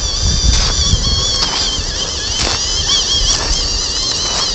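MN-D90 RC truck's small electric motor and gearbox whining high, the pitch wavering up and down as the throttle changes, over a low rumble.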